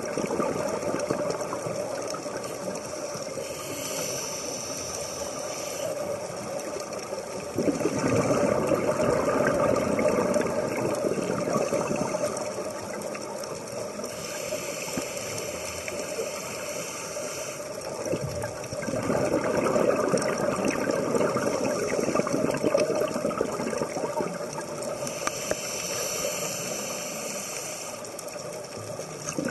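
Scuba diver breathing through a regulator underwater: three slow breaths, each a hissing inhalation followed by a louder, longer gurgle of exhaled bubbles.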